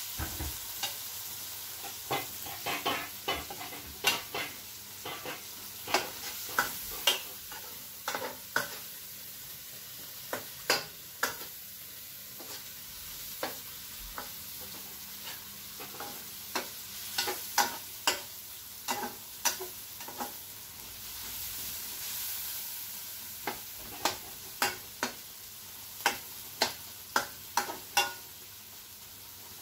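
A metal spoon scraping and clinking irregularly against a metal kadai as a tomato and onion masala is stirred, over a steady sizzle of frying.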